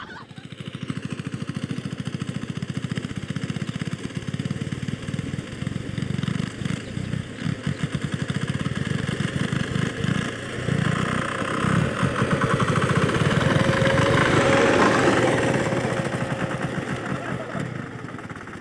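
Power tiller's single-cylinder diesel engine running under load as it pulls a plough through tight soil, a rapid, even knock. It grows louder in the second half, then eases off near the end.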